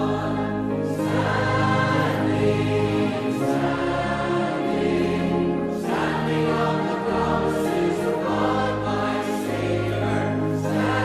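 A choir singing a hymn in sustained chords, the notes changing every second or so.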